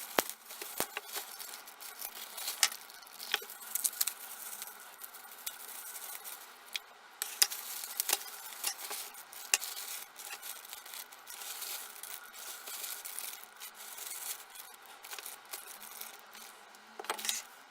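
Bubble wrap and plastic packaging being handled and unwrapped: faint crinkling and rubbing with scattered sharp clicks and ticks.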